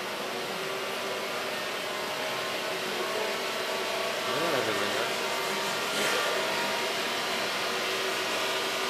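Tesla coil running: a steady electrical buzz that grows slowly louder.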